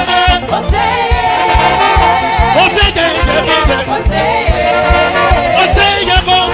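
Live gospel praise music: a lead singer with backing voices over keyboards and a steady drum beat.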